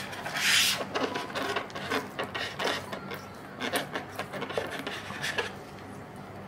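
A spatula scraping and tapping leftover fried rice out of a food container, in a run of short scrapes with the loudest about half a second in, fewer after about five seconds.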